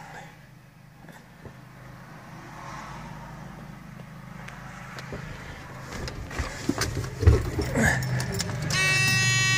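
Caterpillar C15 diesel engine heard from inside the truck cab as a steady low hum that grows louder. A few knocks and clatters come in the second half, one sharp knock the loudest. Near the end a steady high tone with many overtones starts.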